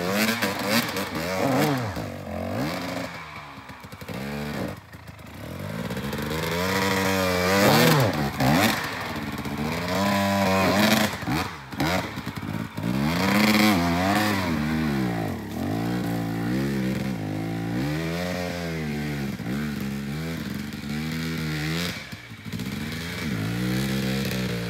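Two-stroke enduro dirt bike engine revving as it climbs a steep, rutted trail, its pitch rising and falling again and again with the throttle. It eases off for a moment about four seconds in, then picks up again.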